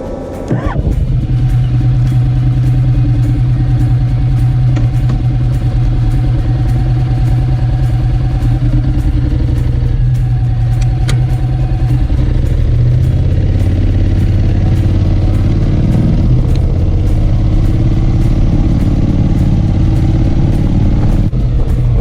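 Honda X-ADV's parallel-twin engine pulling away about half a second in, then running steadily under way with road noise, its pitch shifting for a few seconds around the middle.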